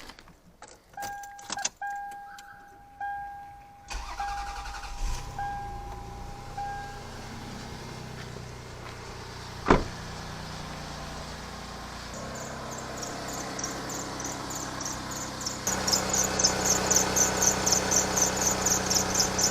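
Lexus RX300's V6 engine being started while the dashboard warning chime beeps, with one sharp knock. Then a fast, regular high-pitched chirping from the alternator belt grows louder and keeps on: the sound of a worn belt that is due for replacement.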